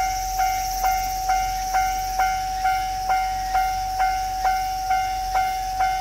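Japanese railway level-crossing warning bell ringing its 'kan-kan' chime, about two strikes a second, each a sharp strike that rings on in an even steady rhythm. It signals that the crossing is closed for an approaching train.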